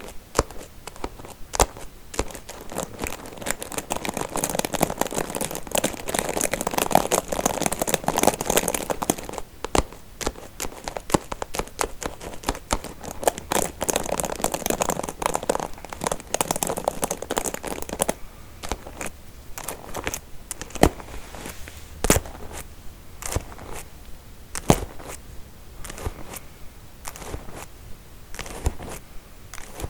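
Combs handled close to the microphone for ASMR: two stretches of fast, dense scratching and crackling over the comb teeth, then, from just past the middle, separate clicks and taps.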